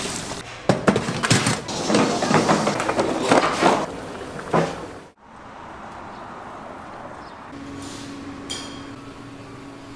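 Kitchen clatter: rapid knocks and rattles of utensils and hard objects, cut off suddenly about halfway, followed by a quieter steady background with a low hum.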